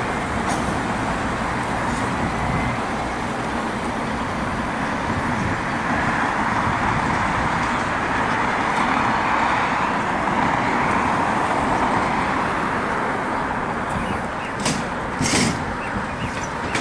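Steady road traffic noise that swells to a peak around the middle, as of a vehicle going by, with a couple of short sharp sounds near the end.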